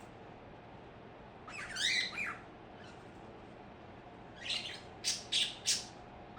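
Pet birds calling: a chirpy call with quick gliding notes about two seconds in, then near the end a short call followed by three short harsh squawks in quick succession.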